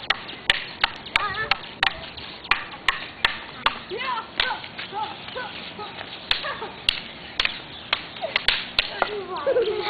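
Wooden sticks clacking against each other in sharp, irregular knocks, at times several a second, as boys spar with them, mixed with children's voices calling out.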